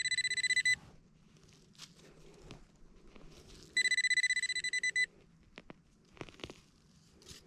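Nokta Pulsedriver metal-detector pinpointer giving its rapid, high-pitched pulsing beep as it alerts on a metal target in the hole, in two bursts: one that stops under a second in and another of about a second roughly halfway through. Between them, faint scratching of soil being dug by hand.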